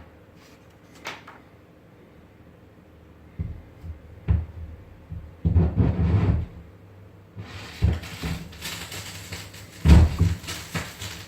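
Irregular low thumps and knocks, several in a row, with a steady hiss setting in about seven and a half seconds in.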